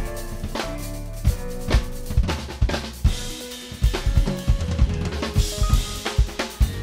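Drum kit played in a busy jazz groove: bass drum, snare and cymbals, with held notes from the rest of the band underneath. A bright cymbal wash builds up in the second half.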